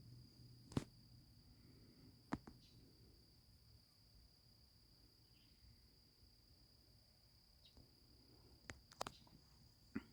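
Faint, steady high-pitched chorus of crickets. A few sharp clicks cut through it: one about a second in, another a couple of seconds later, and three close together near the end.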